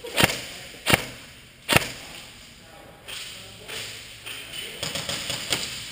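Three sharp cracks of airsoft fire about three-quarters of a second apart, echoing in a large indoor hall. From about three seconds in comes fainter, quicker rattling of more airsoft fire.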